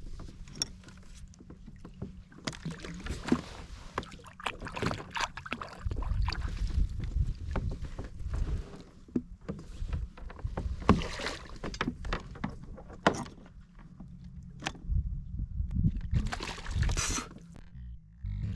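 Handling noises aboard a plastic fishing kayak (Hobie Outback): irregular knocks, clicks and clatter against the hull and gear, over a steady low rumble.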